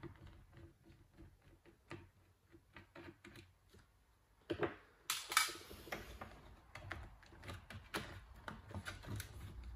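Small screwdriver ticking on screws in a laptop's plastic base, then the plastic bottom cover of a Toshiba Satellite L50-C snapping and clicking as its clips are prised free. The sharpest snaps come about halfway through, followed by a run of lighter clicks.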